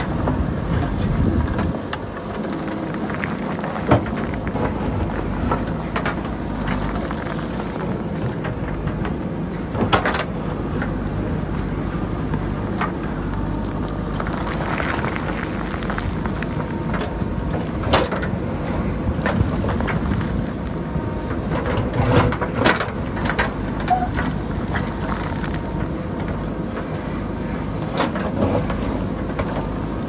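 JCB backhoe loader's diesel engine running steadily while it digs into the hillside, with a few sharp knocks from the digging, about 4, 10, 18, 22 and 28 seconds in.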